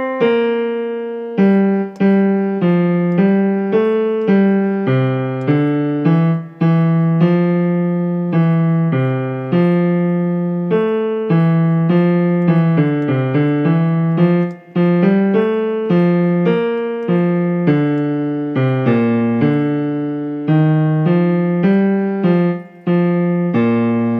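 Piano playing the tenor and bass lines of a choral part-song, two or more notes struck together about once or twice a second, each dying away, ending on a held low chord.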